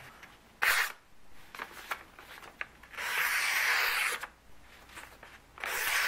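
Knife blade of a vintage Hackman balisong slicing through a sheet of paper, three cuts: a short one near the start, a longer one of about a second in the middle, and another near the end. The blade is still on its original factory edge, and it cuts the paper cleanly.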